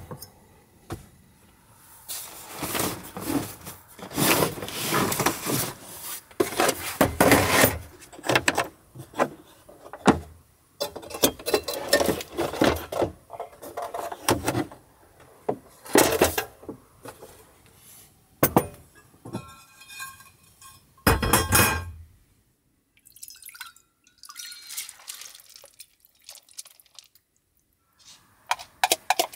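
A glass set down on a wooden tabletop, then a plastic cooler box opened and rummaged through with rustling and clatter, its lid shut with a thump about two-thirds of the way through. Quieter light clinks and dripping liquid sounds follow.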